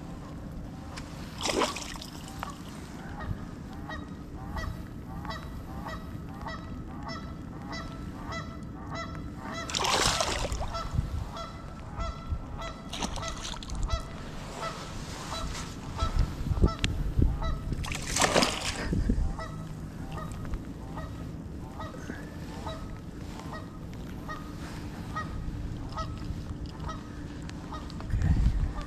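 A hooked pike splashing at the water's surface in a few sudden bursts, about a second and a half, ten and eighteen seconds in. Behind it a bird calls over and over, two or three calls a second at first, then more sparsely.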